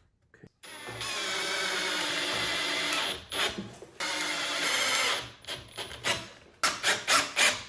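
Cordless drill motor whining as it drives screws: a run of about two and a half seconds, a second run of about a second, then several quick short trigger pulses near the end.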